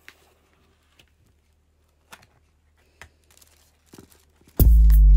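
Faint fingernail taps on a cardboard box and the soft rustle of tissue paper being handled. Near the end, loud music with a drum-machine beat and deep bass suddenly starts.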